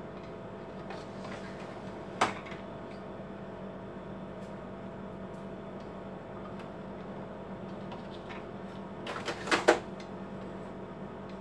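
The plastic front paper tray of an Epson L4160 printer is pulled out with a single click about two seconds in. Near the end it is pushed back in with a quick run of three or four clacks.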